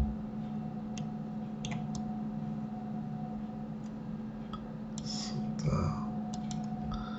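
A few sharp, irregularly spaced clicks from a computer mouse and keyboard over a steady low hum.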